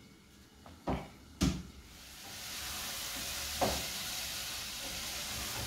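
Food sizzling in a hot cooking pot, a steady hiss that builds up about two seconds in and holds. Two sharp knocks come before it, and a lighter knock follows about halfway through.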